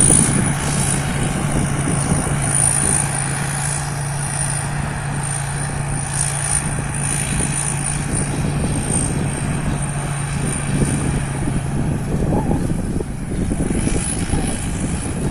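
Rice combine harvester running steadily: a low engine hum with a thin high whine above it. The hum drops away about twelve seconds in.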